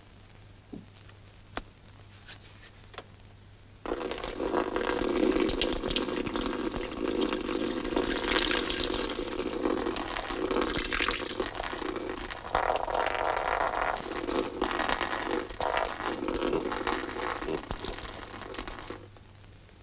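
A man urinating into a papakha (fur hat): a steady splashing stream of liquid that starts about four seconds in and stops sharply near the end.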